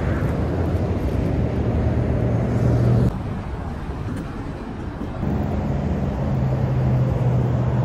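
Road traffic passing close by on a multi-lane road: a steady rush of tyres and engines with a low drone, loud for the first three seconds, easing off, then swelling again about five seconds in as more vehicles go by.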